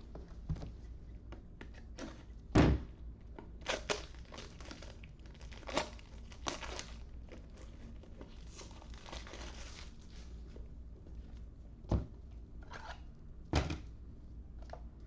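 Objects being handled and set down: a series of scattered knocks and thunks, the loudest about two and a half seconds in and two more near the end, with some crinkling and rustling between them.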